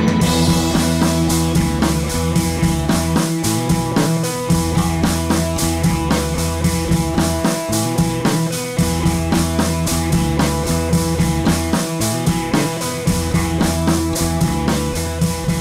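Background rock music with drums, bass and guitar and a steady beat.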